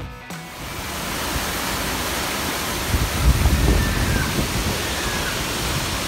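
Waterfall pouring into a pool: a steady, loud rush of falling water, with a brief low rumble about three seconds in.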